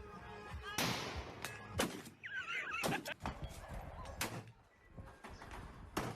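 Gunshots from a compilation clip, about five sharp reports roughly a second apart, with a short high warbling cry between the second and third.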